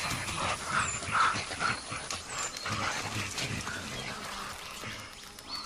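Young mountain gorillas calling during play: a run of short calls over the first three seconds, with faint high bird chirps.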